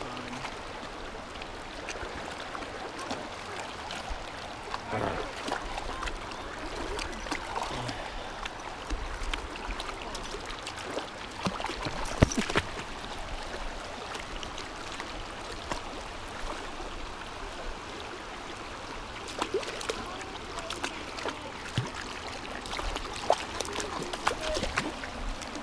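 Shallow rocky creek running steadily, with a dog's feet splashing as it wades through the water. A sharp knock about halfway through.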